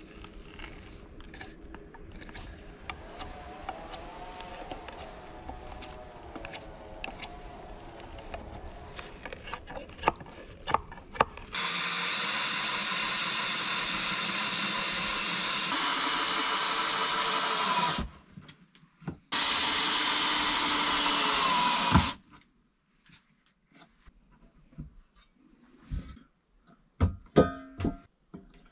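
Power drill running in two long runs, about six seconds and then about three seconds, as a wooden rail is fixed to a log wall. A few sharp clicks follow near the end.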